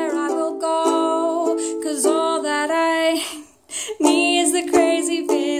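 Ukulele strummed in chords while a woman sings along, with a short break in the playing about three and a half seconds in.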